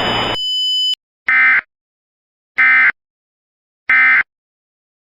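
Emergency Alert System end-of-message signal. A hiss cuts off, a brief steady high tone follows, then three short, identical, buzzy digital data bursts about 1.3 seconds apart. These are the SAME end-of-message (EOM) code bursts that mark the alert as finished.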